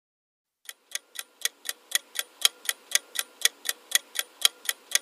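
Quiz countdown timer sound effect: a clock ticking steadily about four times a second, starting about half a second in.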